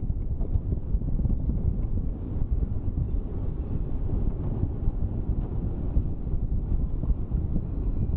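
Steady low rumble of wind buffeting the microphone as it moves forward along the road, with no distinct engine note standing out.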